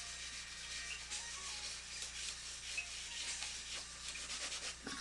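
Soft graphite scratching and rubbing across drawing paper in quick, uneven strokes.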